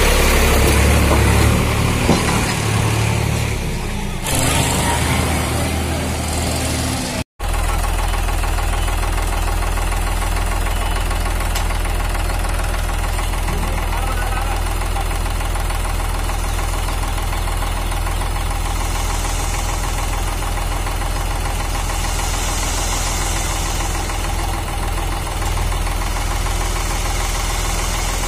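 Preet 49 hp tractor's diesel engine running steadily with a knocking clatter while it powers the hydraulic tipper lifting a loaded trailer. The sound is louder and more uneven for the first seven seconds, then breaks off for an instant and goes on evenly.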